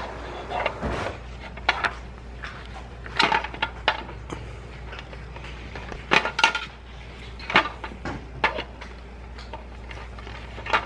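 Small plastic beans from a Don't Spill the Beans game clicking and clattering against the plastic bean pot and each other as they are handled and dropped. About a dozen light clicks come at uneven intervals, some in quick pairs.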